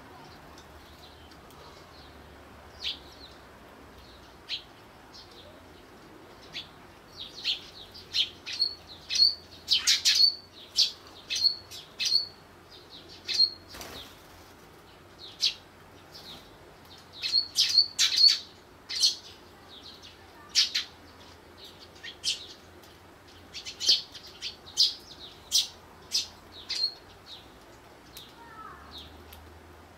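Eurasian tree sparrows chirping at a seed bowl: short, high chirps in quick runs, busiest and loudest from a few seconds in until near the end.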